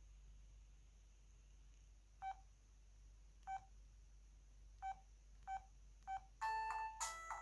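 O2 Ice mobile phone's keypad giving five short, same-pitched beeps as keys are pressed, then a ringtone melody starts playing from the phone's speaker about six and a half seconds in.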